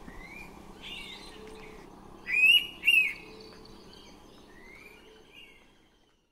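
Several forest birds calling: short rising whistles over steady low background noise, with two loud, sharp calls about half a second apart in the middle.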